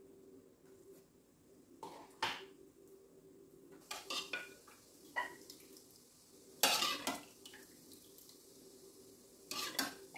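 Ceramic plate, small bowl and utensils clinking and knocking against each other and the stovetop as a dosa is plated, in scattered strikes with the loudest cluster about seven seconds in, over a faint steady hum.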